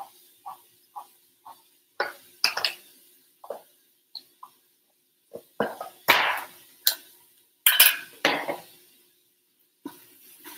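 A hand-cranked can opener is turned around the rim of a tomato can, clicking evenly about twice a second, and stops about a second and a half in. Louder, irregular metal clinks and clanks follow as the opener is lifted off and things are set down.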